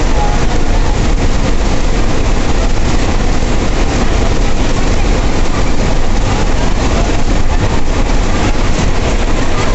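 Ashok Leyland bus's 160 HP turbocharged engine running steadily under way, heard inside the driver's cab together with road and cabin noise as a loud, even drone.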